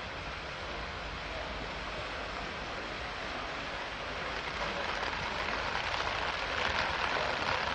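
Heavy rain and flowing floodwater making a steady rushing hiss that grows louder about halfway through.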